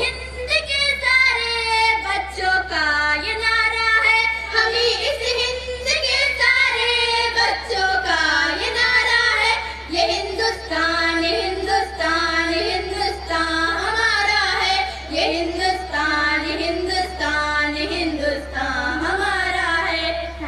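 A girl or young woman singing a tarana (a patriotic Hindustani song) solo, in a melodic, ornamented line with no audible accompaniment. A steady low hum runs underneath.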